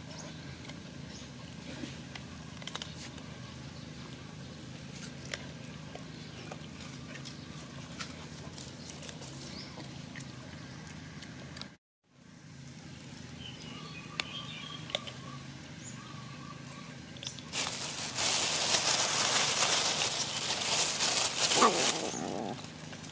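Kittens and a macaque eating fish scraps, with faint scattered clicks of chewing over low background noise. Near the end, a loud rustling hiss lasting about five seconds drowns everything out.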